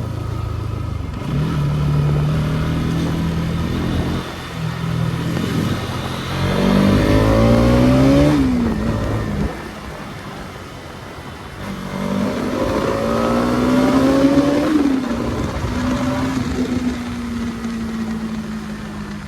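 Bajaj Pulsar NS200 BS6 single-cylinder engine under way, riding at speed. Twice the revs climb for a couple of seconds and then drop sharply, and near the end the engine runs at a steadier pitch.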